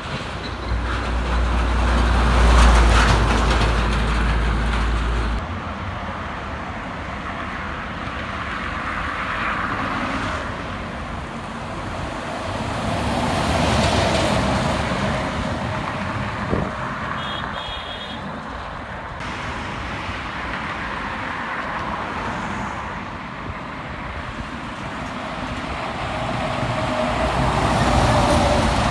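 Highway traffic heard from the roadside: trucks and other vehicles passing one after another, each swelling and fading away, with a heavy low rumble in the first few seconds.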